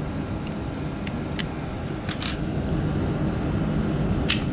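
Small sharp plastic clicks from a fingertip pulse oximeter's housing and clip being handled and pulled apart: a few light clicks, then a sharper one near the end. A steady background hum runs underneath.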